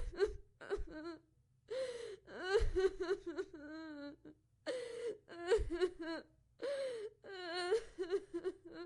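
A woman crying: short broken sobs, with a few longer wavering wails and gasping breaths between them.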